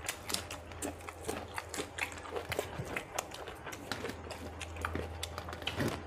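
Close-up eating sounds: wet mouth smacks and chewing clicks from people eating rice and fish curry, several a second and irregular, over a steady low hum.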